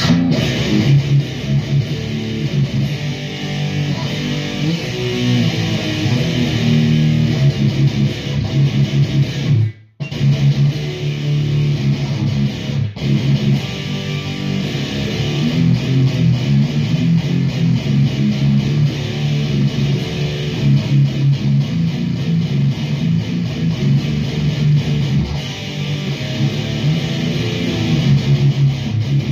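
Electric guitar played through a REVV G4 high-gain distortion pedal with the gain at 3 o'clock, heard from a Marshall amp and Mesa 4x12 cabinet: distorted riffing with heavy, tight low end. The playing stops dead just before ten seconds in, then resumes.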